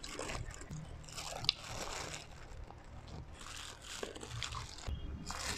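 Close-up biting and chewing of a steamed chicken wing, with irregular soft crunches and mouth smacks and one sharp click about a second and a half in.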